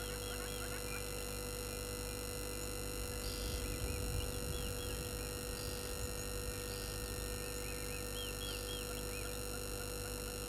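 Steady electrical hum and whine from the outdoor camera's microphone, with faint, quick bird chirps in the background at the start and near the end, and a brief low rumble around four seconds in.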